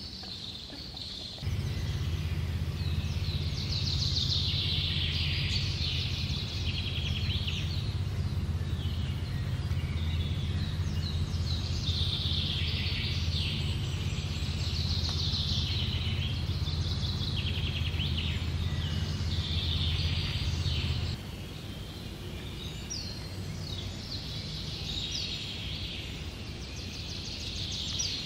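Woodland songbirds singing and chirping on and off throughout. A steady low hum starts abruptly a second or so in and is the loudest sound while it lasts, then cuts off suddenly about three-quarters of the way through.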